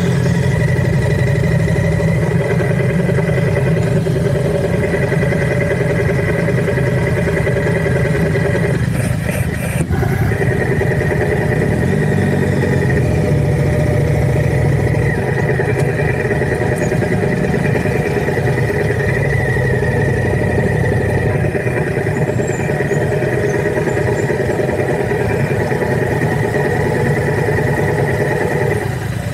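Vehicle engine running steadily, with a brief change in its sound about nine to ten seconds in.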